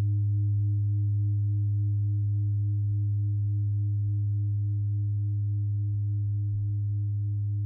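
Steady low drone tone, a deep hum with a fainter, slightly wavering higher tone above it, growing a little quieter.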